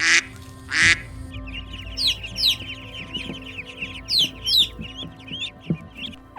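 Young poultry calling: two loud, harsh calls, then a rapid run of high peeps that each drop in pitch. Background music plays under them.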